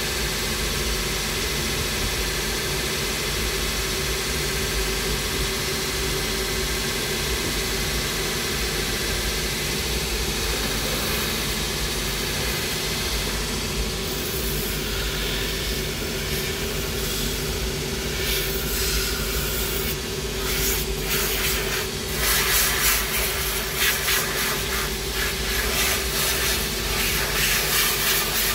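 Steady running hum and hiss of a workshop machine. From about two-thirds of the way through, irregular scratchy strokes of a glue brush being worked over the suede side of a leather piece.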